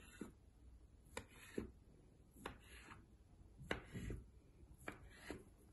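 Kitchen knife slicing a log of soft cookie dough into pieces, the blade knocking faintly on the marble countertop with each cut: a series of light taps, about one every half second to second.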